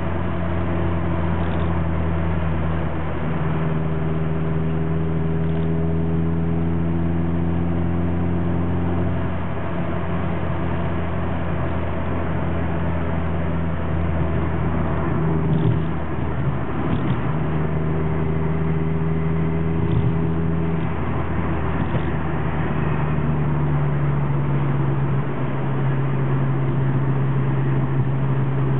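Honda Civic driving at a steady cruising speed, heard from inside the cabin: a constant low engine and road rumble with a steady hum whose pitch shifts a few times.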